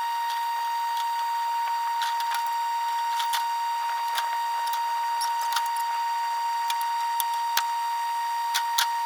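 Power grinder running with a steady high whine while cutting through rusted metal holding a truck bed to the frame, with scattered short clicks and ticks.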